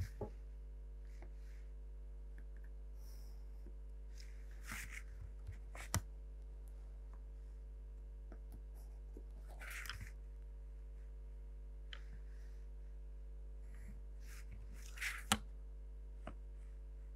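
Pencil drawing lines along plastic set squares on a drawing sheet: a few short, soft scratching strokes and a couple of light clicks as the instruments are shifted, over a faint steady hum.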